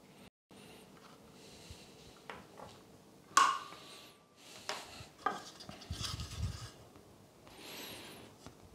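Small metal clicks and clinks of mini jump-lead clips being handled and unclipped, the loudest a sharp clink with a brief ringing tone about three and a half seconds in, then handling noise as the wooden frame is picked up.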